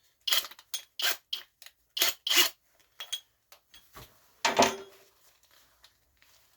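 Gloved hands working the chuck of a Flex hammer drill to fit a paddle bit: a run of short scraping clicks over the first few seconds, then a louder clunk with a brief ring about four and a half seconds in.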